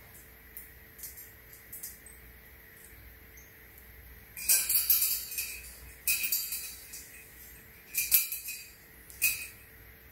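Black e-coated steel wire panels of a folding pet exercise pen clinking and rattling against each other as they are pulled into shape: a few light ticks, then several loud metallic rattles in the second half.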